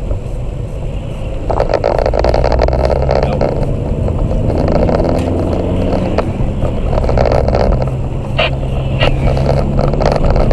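Car being driven, its engine running under steady road and tyre noise, the engine note shifting in pitch partway through, with a few brief knocks near the end.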